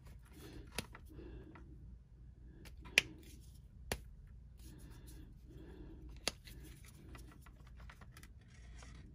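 Plastic markers being handled, uncapped and set down on a tabletop: four sharp clicks, the loudest about three seconds in, with faint rustling between them.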